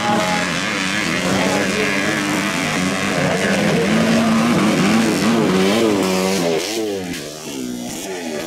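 Motocross dirt bike's single-cylinder engine running hard. Its pitch holds fairly steady at first, then swoops up and down several times with throttle and gear changes, and it fades near the end.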